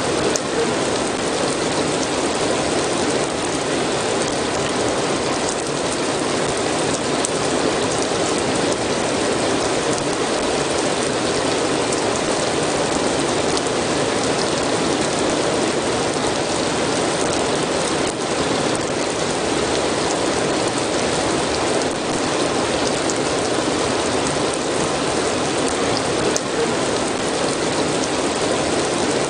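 Steady, dense rain falling and pattering, with fine scattered drip ticks.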